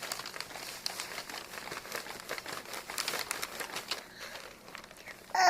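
Light crinkling and rustling made up of many small crackles, which thin out near the end.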